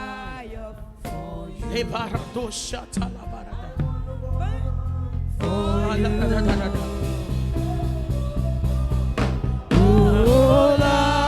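Gospel worship music: a voice singing long, gliding notes over a steady beat and bass, getting louder near the end.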